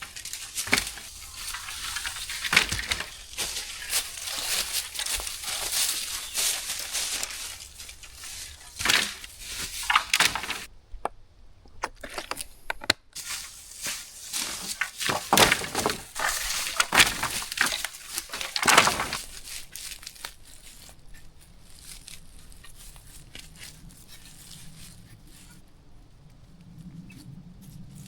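Dry leaves and twigs crunching and crackling underfoot and in the hands, with irregular sharp snaps.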